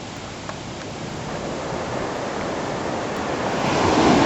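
Ocean surf washing on the beach, a steady rush that swells louder toward the end as a wave comes in.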